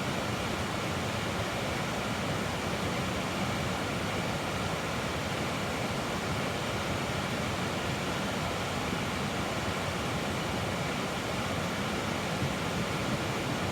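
Steady rushing of a creek: an even wash of flowing water.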